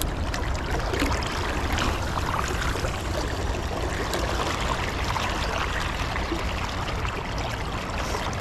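Steady rush of flowing river water, an even noise with faint scattered ticks in it.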